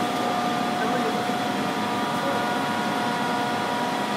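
CK6031B heavy-duty CNC face lathe running: a steady machine hum with a few high, unchanging tones over it.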